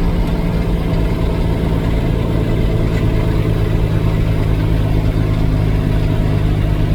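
Vehicle engine and road noise heard from inside the cab while driving, a steady low hum at an even pitch.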